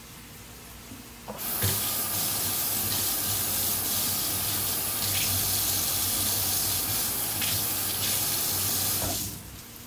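Kitchen faucet turned on about a second in, its stream running and splashing into a stainless steel sink over a peeled boiled potato and a knife being rinsed, then shut off near the end.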